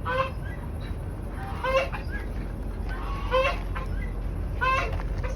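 Chicken calling four times, short pitched calls about a second and a half apart, over a steady low rumble.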